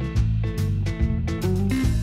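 Background music: an instrumental led by guitar, with changing notes and a bass line.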